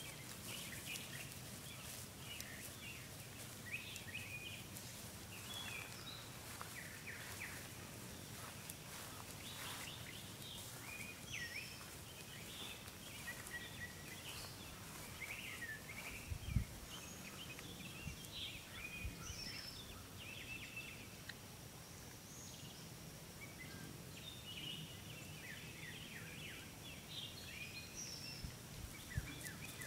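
Birds singing and calling, many short chirps and whistles, over a steady outdoor background hiss and a faint steady high tone, with one dull thump about halfway through.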